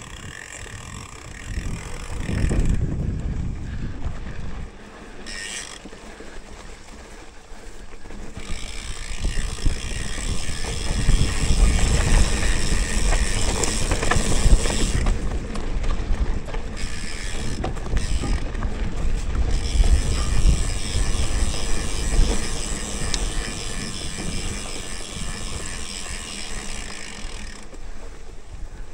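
Mountain bike riding a rough dirt trail. The rear hub's freewheel ratchet ticks as the bike coasts, and the bike rattles and rumbles over the bumps, the rumble swelling and easing as the ground changes.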